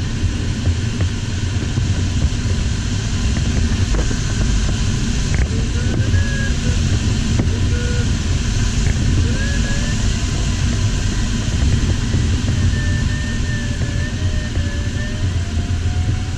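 Steady rush of air over the cockpit of an LS4 sailplane in flight. Faint thin tones wander up and down in pitch over it from about five seconds in.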